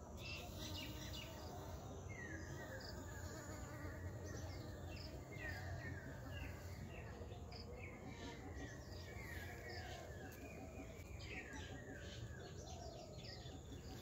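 Insects and birds: a steady low hum under runs of short, falling chirps that repeat throughout.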